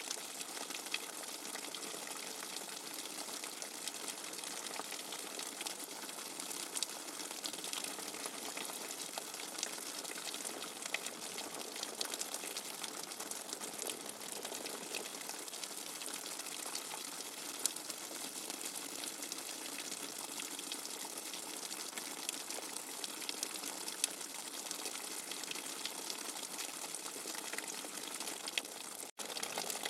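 Steady white-noise track of rushing water, an even hiss with a fine crackle, like a running tap. It cuts out for an instant near the end, then resumes.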